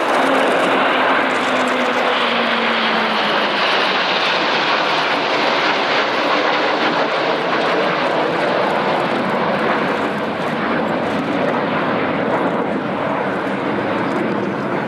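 Jet engine roar from a mixed formation flypast: nine Red Arrows BAE Hawk jets flying with an F-35B Lightning II and Eurofighter Typhoons. A tone falls in pitch over the first few seconds as the jets pass, then a steady roar follows that eases slightly near the end.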